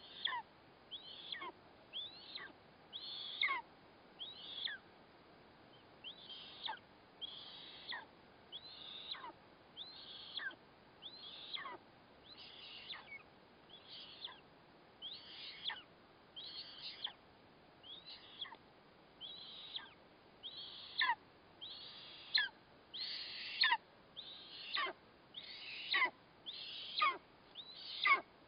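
Eastern imperial eagle chick's food-begging calls during a feeding: high, thin calls that slide downward in pitch, repeated about once a second and growing louder in the last few seconds.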